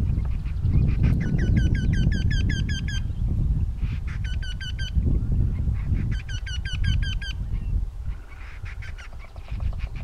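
Eurasian wrynecks giving their spring courtship calls: rapid series of repeated, evenly spaced ringing notes, about five a second, three series in quick succession with a fainter series near the end, over a steady low rumble.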